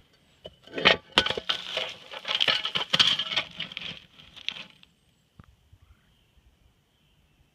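Rusty metal fitting scraped, knocked and dropped onto railway ballast: a dense run of crunches and clinks on the stones for about four seconds, ending with a single click.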